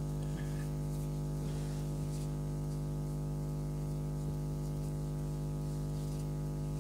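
Steady low electrical hum with a stack of overtones, holding at one level throughout, with a couple of faint light ticks.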